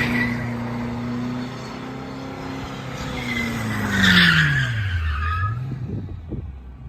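Cadillac CTS-V's supercharged 6.2-litre V8 held at steady high revs with tyres squealing, as in a burnout. About three seconds in the revs fall away steeply, with a loud burst of squeal, down to a low engine note near the end.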